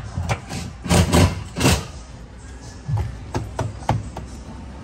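Irregular knocks and thumps of hand tools and parts being handled on a van's floor during a mat and seat fitting, with several louder knocks in the first two seconds and lighter clicks a few seconds in.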